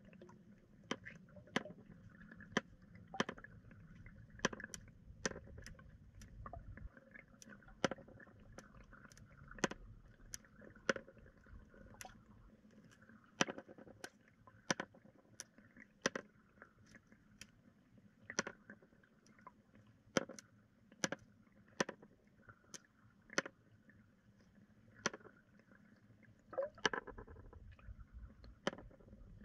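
Sharp, irregular clicks, about one a second, over a faint low rumble. They come from a Carolina rig's sinker and bead knocking together and against the hard pool floor as the soft-plastic lure is twitched and dragged.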